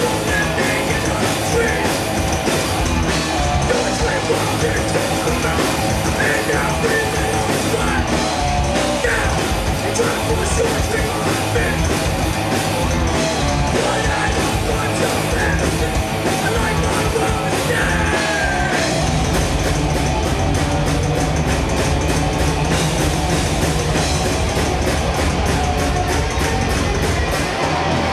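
A heavy metal band playing live and loud: electric guitars, bass and drum kit, with a vocalist singing into the microphone. From about two-thirds of the way in, the drums turn to a fast, even run of strokes.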